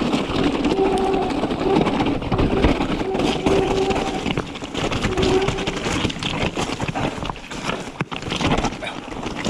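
Mountain bike rattling and clattering as it rolls fast over a rocky, stony trail, with wind rushing over the handlebar-mounted camera microphone. Short steady tones come back every second or two over the rattle.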